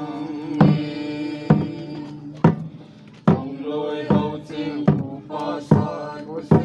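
A small group singing a hymn-like song together into a microphone, accompanied by a large wooden barrel drum struck on a steady beat, a little faster than one stroke a second.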